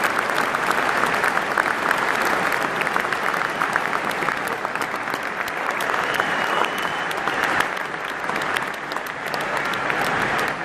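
Large stadium crowd clapping and cheering, a dense steady wash of applause.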